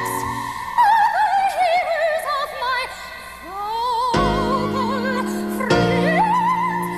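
Operatic soprano voice singing with wide vibrato over instrumental accompaniment: a falling phrase, then long held high notes.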